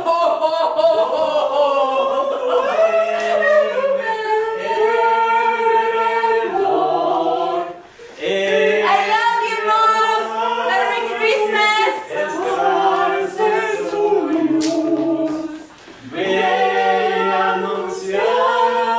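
A small group of men and women singing together without accompaniment, the song broken into phrases with brief pauses about 8 and 16 seconds in.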